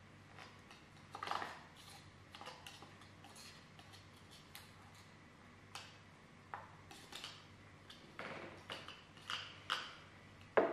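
Metal utensil stirring in a glass bowl: faint, irregular clinks and scrapes against the glass, with a few sharper taps near the end.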